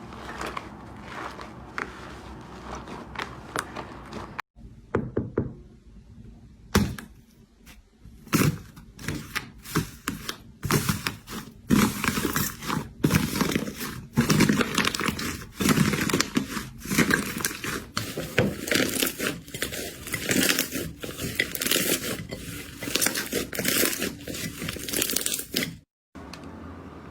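Slime being squeezed and pressed by hand: a dense run of clicks, pops and crackles. The sound drops out briefly twice, where one clip cuts to the next.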